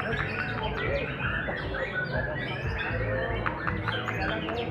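Several caged white-rumped shamas (murai batu) singing at once: a dense tangle of quick chirps, whistles and trills overlapping without pause, over a steady low background hum.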